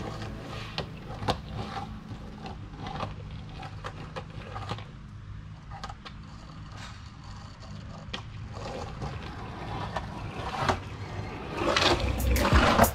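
Skateboard wheels rolling over concrete, with scattered clicks and knocks from the board. The rolling is faint in the middle and grows louder near the end as the skater rides up close.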